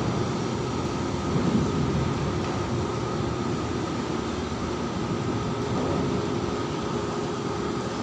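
Steady mechanical drone of a floating crane's diesel machinery running on deck, an even rushing noise with a faint steady hum through it.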